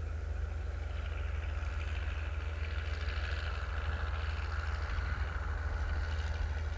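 Vehicle engine running steadily, a low, even rumble with a faint hiss above it.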